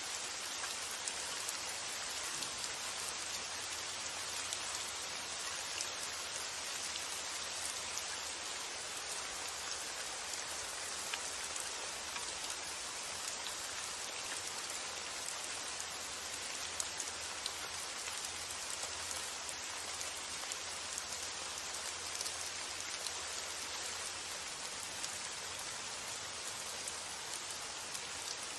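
Steady rainfall, a constant hiss of drops with fine individual ticks of drops striking a surface.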